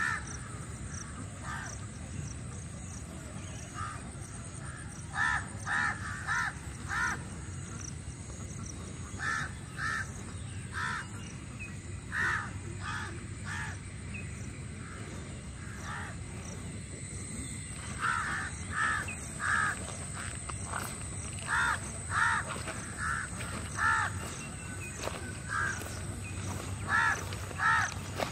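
Crows cawing over and over in runs of two to five caws, with short pauses between runs, over a steady low background.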